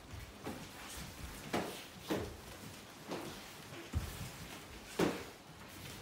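Kicks landing on padded kick mitts: a string of irregular slaps and thuds, about seven in all, the sharpest about five seconds in, with light footfalls on foam mats.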